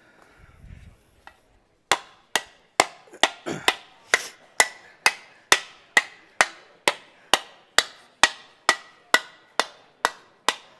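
A mallet beating an aluminium panel to shape it: a steady run of sharp blows starting about two seconds in, roughly two a second, each with a short metallic ring from the sheet.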